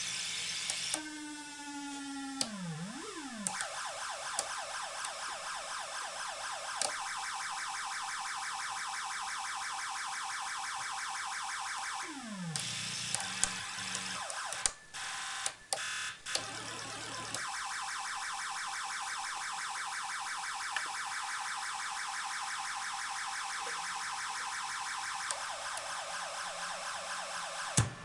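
Modular synthesizer module built from a DIY doorbell sound-chip kit, played through a filter and delay: harsh, buzzy electronic tones in a fast repeating pattern, with a couple of falling pitch sweeps and brief cut-outs about halfway. Sharp clicks come and go, the loudest just before the end, heard through a camera's built-in microphone.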